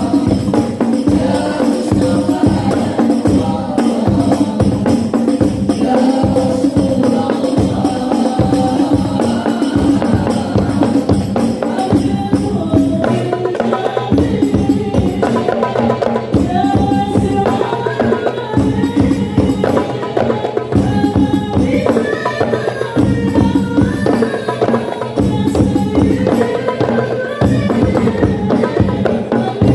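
Group singing of a devotional song over many quick, steady strokes of hand-beaten frame drums with jingles.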